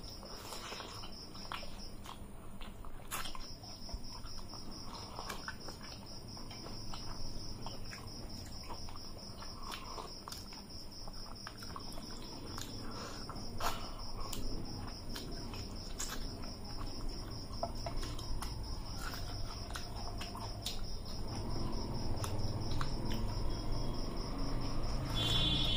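A steady, high insect trill like a cricket's runs underneath. Scattered soft clicks, smacks and chewing come from rice and curry being eaten by hand off metal plates.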